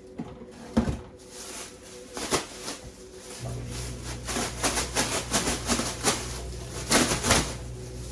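Plastic trash bag rustling and crinkling as it is handled, with bursts of handling noise. A low steady hum comes on about three and a half seconds in.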